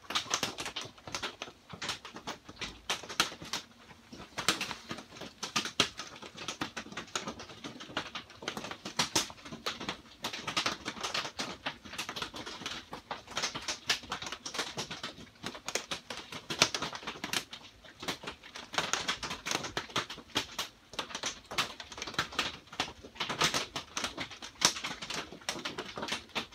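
Rain pattering on a greenhouse's corrugated plastic roof and walls, heard from inside as a dense, irregular run of sharp drop taps.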